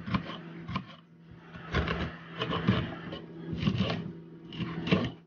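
Nespresso coffee machine running with a steady mechanical hum, with repeated knocks and clatter over it; the sound cuts off suddenly at the end.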